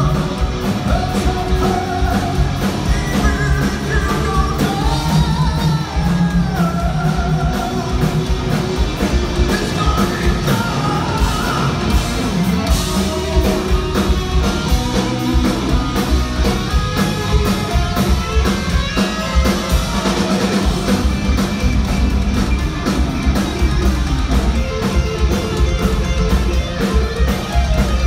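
Heavy metal band playing loud and live: electric guitars, bass and drum kit, with a singer.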